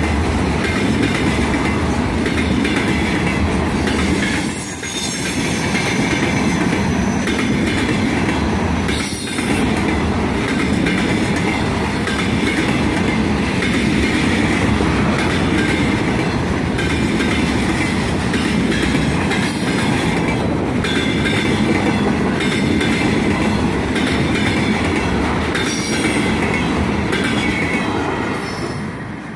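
Container flat wagons of a long freight train passing close by at speed, their wheels running on the rails in a steady, loud rumble. The sound drops away near the end as the last wagons go by.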